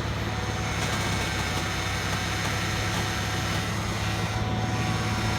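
Car engine idling, with a steady whine from the power steering as the wheel is turned. The noise has been likened to a dying cat, and topping up the power steering fluid has not cured it.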